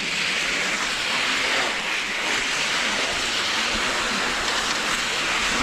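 Cross-country skis sliding along a set track in the snow: a steady scraping hiss from the moving skis.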